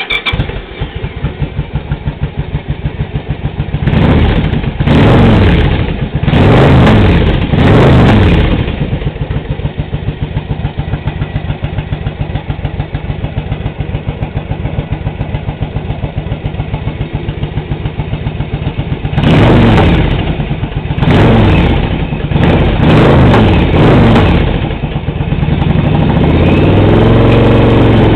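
Motorcycle engine catching and starting, then idling, with repeated throttle blips that rise and fall. There are about three revs in the first several seconds, a steady idle, and a further run of revs before the engine is held at a higher speed near the end.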